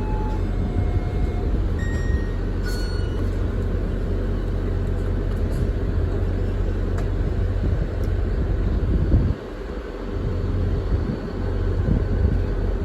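Diesel locomotive of an NJ Transit commuter train running at the platform as the train gets ready to depart, a steady low drone. A few short beeping tones sound in the first three seconds.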